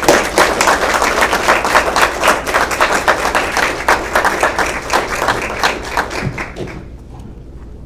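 Audience applauding, dense clapping that fades out about seven seconds in.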